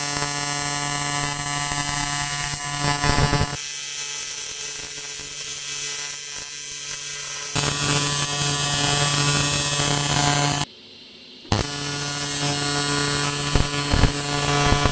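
AC TIG welding arc on aluminium buzzing steadily at its 140 Hz AC frequency, with the welder set to 85 amps. The buzz stops for about a second roughly three-quarters of the way through, then starts again.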